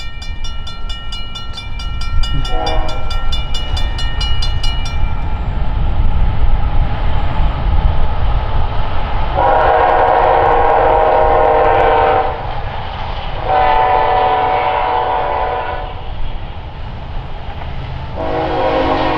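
Norfolk Southern freight locomotive sounding its multi-note air horn: a short toot about two seconds in, then long blasts about ten seconds in, again around fourteen seconds, and once more near the end. Under it runs the steady rumble of a passing autorack train, and a bell rings rapidly for the first few seconds.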